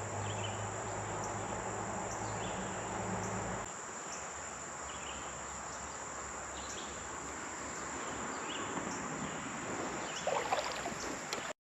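Steady outdoor insect chorus: a constant high buzz with short chirps every second or so. A low hum underneath stops abruptly a few seconds in.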